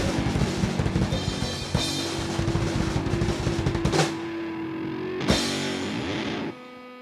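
Live rock band playing the instrumental close of a song, with the drum kit and guitar going full tilt, then cymbal crashes. The band stops about six and a half seconds in, leaving only a steady ringing tone.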